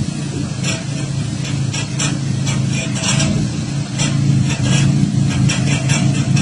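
Microvan engine running steadily at low revs as the van creeps in reverse, with frequent short crackling clicks over the hum.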